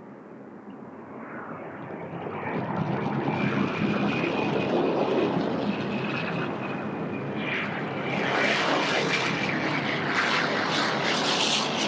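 Jet aircraft engines passing close: a steady high-pitched whine over a roar that swells over the first few seconds, turning harsher and crackling from about eight seconds in.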